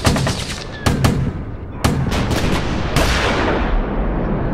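Gunfire sound effects: rapid volleys of shots, single shots about a second in, another volley near two seconds, and a heavier blast about three seconds in that fades over about a second.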